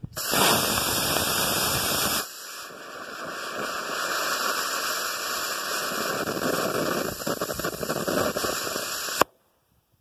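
Estes C6-7 black-powder model rocket motor firing on a static test: a loud hiss for about two seconds of thrust, then a quieter, rougher hiss for about seven seconds as the smoke delay burns. It ends in a sharp pop as the ejection charge fires.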